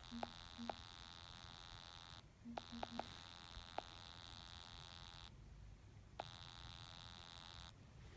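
A faint, steady, high-pitched electrical whine and hum that cuts out and comes back three times, with a few soft clicks.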